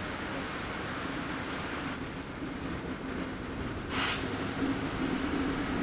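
Steady rain, with the low steady hum of an approaching freight locomotive's diesel engine setting in about two seconds in and growing slightly. A short hiss comes about four seconds in.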